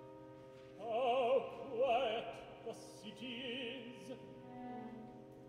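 Operatic tenor singing slow, drawn-out phrases with wide vibrato over quiet, sustained orchestral chords.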